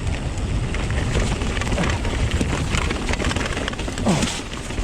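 Strong gusting wind buffeting the microphone, with scattered knocks and rattles from the mountain bike riding over rough trail. A short falling squeak comes about four seconds in.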